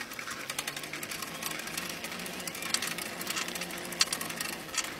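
Bicycle coasting: the rear freewheel ticks rapidly, over a faint steady hum.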